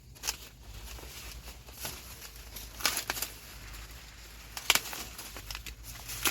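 Dry corn leaves and husks rustling, with several sharp snaps as ears of corn are broken off the stalks by hand; the loudest snaps come a little before halfway and again near the end.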